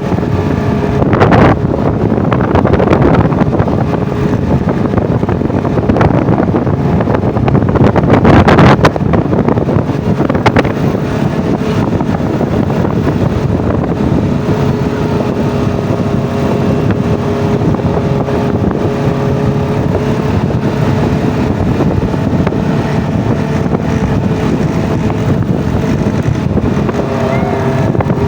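Off-road vehicle's engine running steadily while riding, with wind buffeting the microphone and a couple of louder rushes about a second in and again around nine seconds in.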